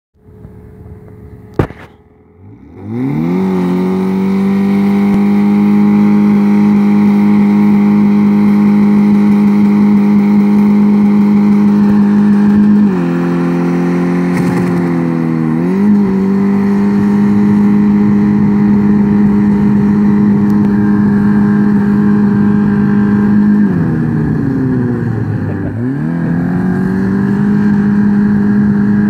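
Burnout in a BMW E36 with the 1.8-litre four-cylinder engine, done to finish off worn tyres. About three seconds in the engine revs up quickly and is held at high revs while the rear tyres spin against the asphalt. The revs dip briefly twice around the middle and drop and climb again near the end.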